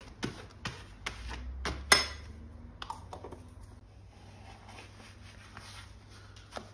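A table knife clicking and scraping as peanut butter is spread on a plastic shower cap, with a sharper clatter about two seconds in, then softer rustling of the shower cap being handled.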